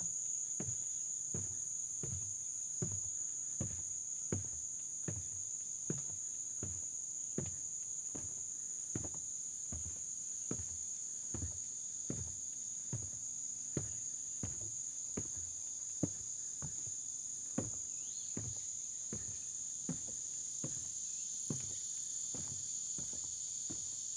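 Footsteps of a person walking a hill trail at a steady pace, about one and a half steps a second, over a steady high-pitched chorus of insects.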